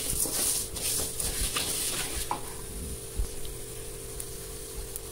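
Coriander seeds being stirred with a wooden spatula in a metal kadai, rustling and scraping over a light sizzle of coconut oil. The stirring eases off about halfway through, leaving the sizzle with an odd crackle of a seed popping, the sign that the seeds are nearly roasted.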